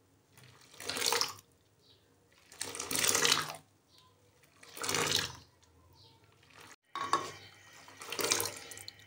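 Hot boiled milk being scooped with a steel ladle and poured back into a clay pot from a height, splashing in repeated pours about two seconds apart. The pouring whips froth onto the milk before it is cooled and set as yogurt.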